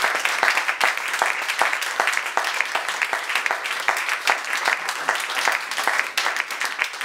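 A small audience applauding, many separate hand claps in a steady patter.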